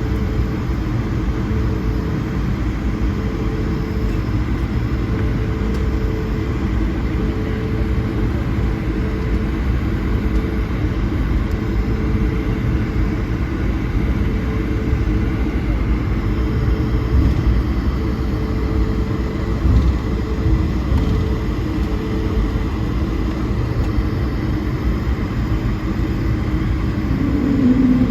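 Airbus A220-100's Pratt & Whitney geared turbofan engines heard from inside the passenger cabin: a steady rumble with a faint pulsing hum above it. Near the end a new, lower hum comes in and rises slightly in pitch.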